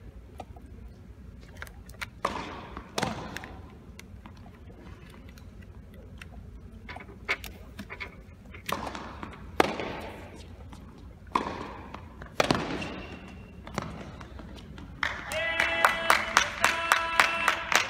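Tennis ball struck by rackets and bouncing on an indoor hard court during a rally, each hit echoing around a large arena hall. Near the end, rhythmic clapping and chanting voices start up.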